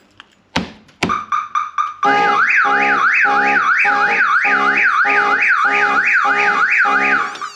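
Two knocks on the car body set off a Viper 5903V car alarm: a quick run of short beeps, then the full siren wailing up and down about twice a second over a lower pulsing tone. It is the alarm's shock sensor being triggered by the knocks.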